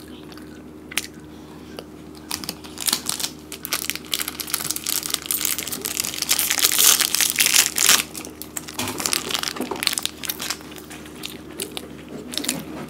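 Crinkly plastic snack wrappers being handled and torn open by hand, a dense crackling that builds from about three seconds in, is loudest in the middle and thins out towards the end.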